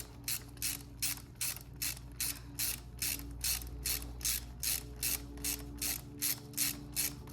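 Ratchet wrench clicking in short, even strokes, about three a second, as the banjo bolt on a motorcycle's new front brake hose is tightened.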